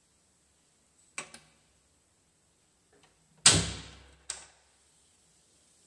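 Two light clicks, then a heavy thud that dies away over most of a second, and a sharper knock just under a second after it.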